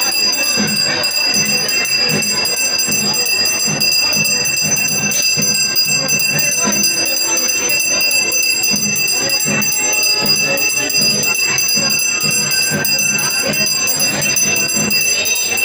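Brass puja hand bell (ghanta) rung without pause during arati worship, its high ringing tones held steady throughout.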